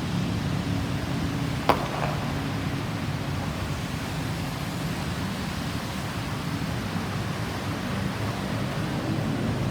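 Steady low rumble of road vehicles, with a single sharp click about two seconds in.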